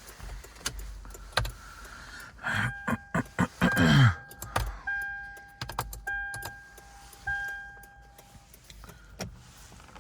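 A Toyota 4Runner's electronic warning chime sounding three times about a second apart, after a run of clicks and rattling and a brief loud sound falling in pitch.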